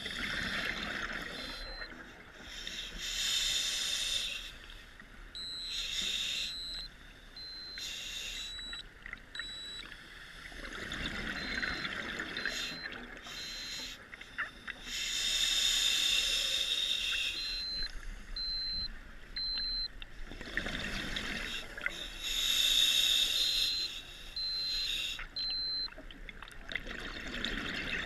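Scuba diver breathing through a regulator underwater: a hissing inhale alternating with a bubbling exhale, repeating every few seconds.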